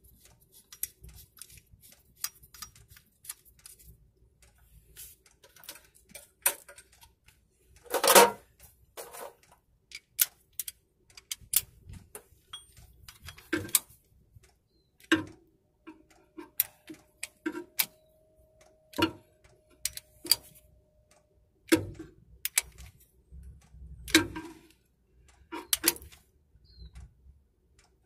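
Hand ratchet wrench clicking in short irregular runs, with small metal clinks, while the bolt and locking washer holding the output flange onto a Turner T5A gearbox's output shaft are screwed in and tightened.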